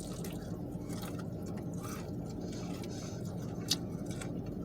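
A person chewing food, with small wet, squishy mouth noises and one sharp click-like crunch about three and a half seconds in, over a steady low room hum.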